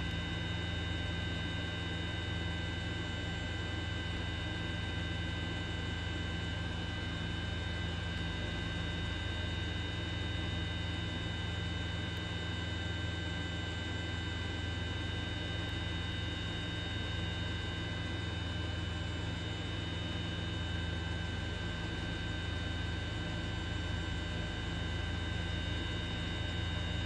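Steady drone of a helicopter heard from on board: a low hum under several constant high whining tones and a hiss, unchanging throughout.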